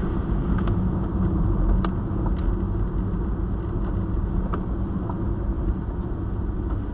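Steady low road and engine rumble heard from inside a car driving on a wet road, with faint ticks scattered through it.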